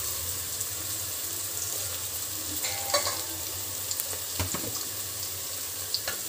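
Chopped onion and small pieces of mutton fat frying in oil in a stainless steel pot, sizzling steadily, with a few light knocks of the spatula against the pot.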